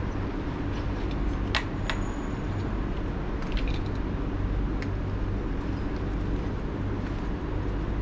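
A steady low hum, with a few light clicks of wire connectors and a controller being handled.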